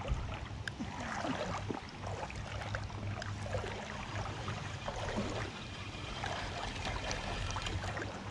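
Shallow creek water trickling and gurgling in many small splashes, over a steady low hum.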